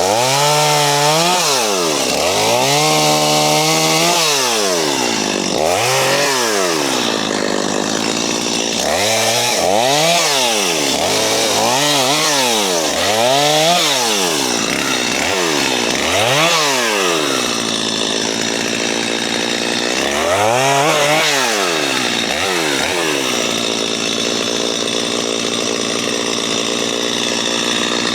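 JCB 55Z mini excavator's diesel engine running hard, its pitch rising and falling over and over as the hydraulics take load and let go, over a steady noisy clatter of the machine working. The pitch swings come in runs, then settle to a steady drone for the last few seconds.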